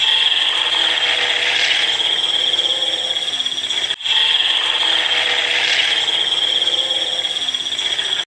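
Reconstructed Tyrannosaurus rex call sound effect: a sustained noisy call with a steady high-pitched tone running through it, given twice as two near-identical four-second calls with a brief break between them.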